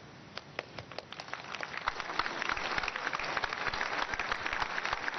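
Congregation applauding: a few scattered claps that build within about two seconds into steady clapping from a large crowd.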